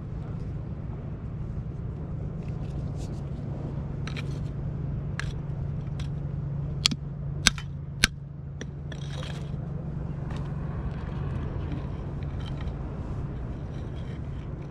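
Scattered light clicks and taps over a steady low hum. Three sharp clicks come about seven to eight seconds in, roughly half a second apart.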